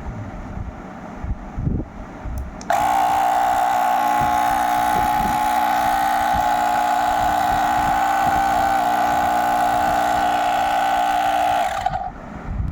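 Cordless tyre inflator's compressor motor switching on suddenly about three seconds in, running at a steady high pitch for about nine seconds, then cutting off near the end. Low handling knocks come before it.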